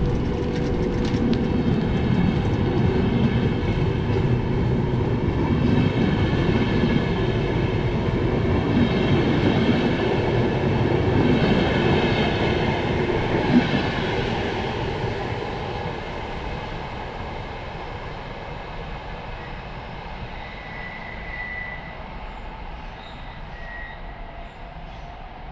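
Double-deck InterCity passenger train rolling past at close range: a loud rumble of wheels on rail with a high whining tone over it and one sharp knock about 14 seconds in. After that the sound fades steadily as the train moves off into the distance.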